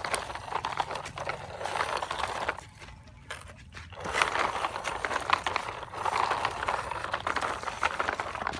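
Plastic toy dump truck's wheels rolling and scraping over gritty dirt and small stones as it is pushed by hand, a crunching with many small clicks. It goes in two pushes with a short pause about three seconds in.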